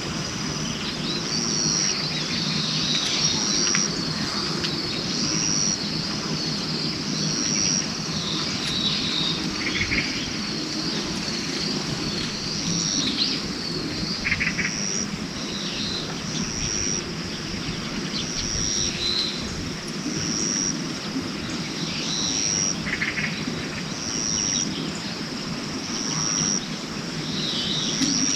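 Outdoor nature sounds: scattered bird-like chirps over a steady background hum, with a short high chirp repeating about every second and a half.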